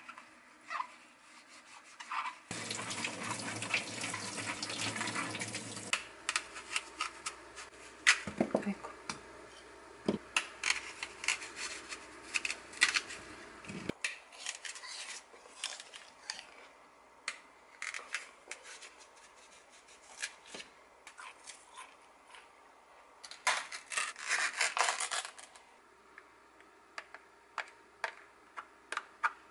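Kitchen handling sounds: a green apple rubbed and rinsed under a running tap for a few seconds, then scattered clicks and knocks as it is cut with a knife over a wooden bowl and a spoon and plastic cup are handled.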